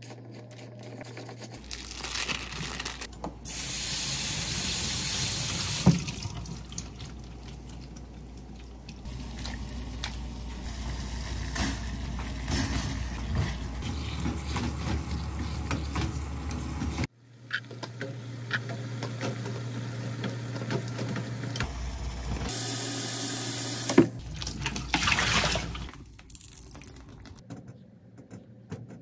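Kitchen tap running in two short bursts, about four seconds in and again near the end, with water bubbling in a pot between them.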